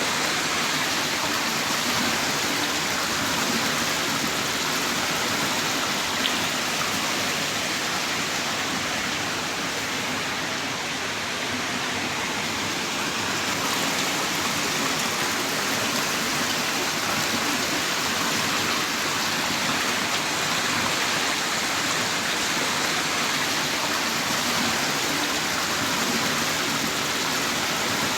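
Heavy rain pouring down in a steady, dense hiss, with no distinct drops or thunder standing out.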